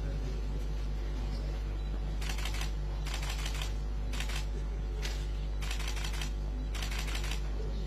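Press photographers' camera shutters firing in rapid bursts, about six short volleys of clicks starting about two seconds in, over a steady low electrical hum.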